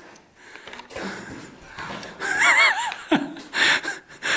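A person laughing in a short run of high-pitched bursts about two seconds in, followed by a quick falling vocal sound and breathy noise.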